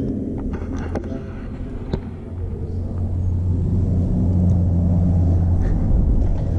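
Low steady rumble of a motor vehicle's engine in the street, growing louder about two and a half seconds in, with a few light knocks in the first couple of seconds.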